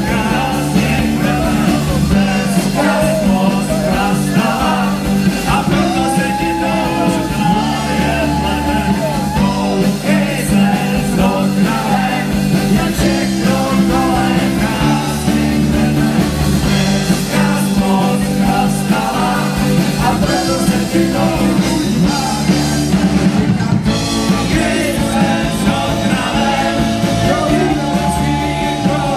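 A live rock band playing loudly through a PA: accordion, saxophone, electric guitars, bass guitar and drums.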